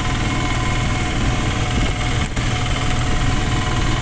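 Engine of a moving road vehicle running steadily, heard from inside the vehicle, with a steady hiss of wind and road noise over it.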